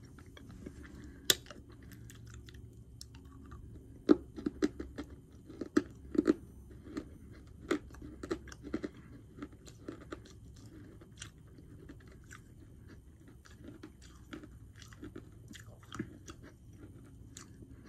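A person biting and chewing a piece of hard edible chalk: a sharp bite about a second in, then a run of crisp crunches that thin out into softer chewing towards the end.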